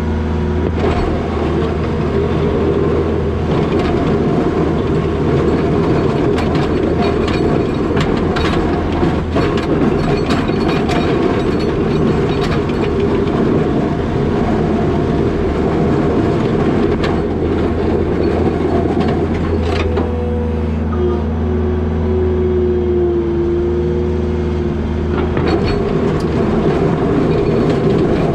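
New Holland L220 skid steer's diesel engine running steadily under load while pushing wet snow with a box plow. Scattered clanks and rattles come through, and a wavering whine rises over the engine in the second half.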